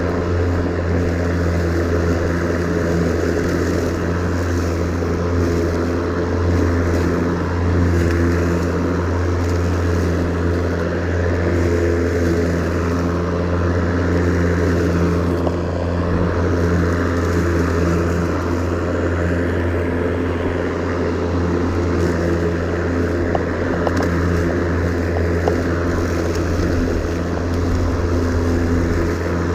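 Ryobi 40-volt 20-inch cordless electric lawn mower running steadily while mowing grass. Its motor and spinning blade give an even hum with a hiss on top.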